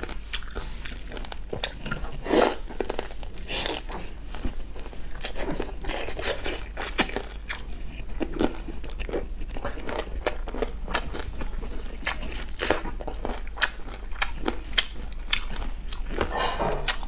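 Close-miked chewing and biting of spicy boneless chicken feet, with many sharp, irregular crunches from the cartilage.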